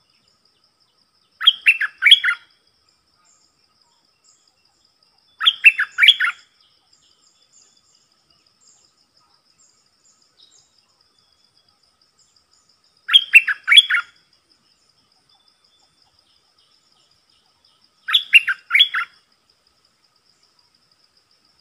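A bulbul (merbah) sings four short phrases, each a quick run of four or five bubbly notes lasting under a second, spaced several seconds apart. A faint, steady insect trill runs behind it.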